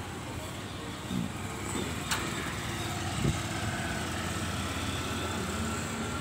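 Road traffic: motorcycle and scooter engines going by over a steady low rumble, with one sharp click about two seconds in.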